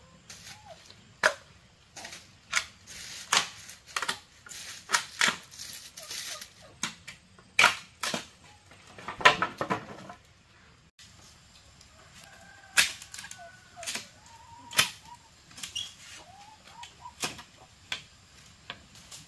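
A series of sharp, irregular knocks and clicks, several a few seconds apart and some in quick clusters, with a break about eleven seconds in.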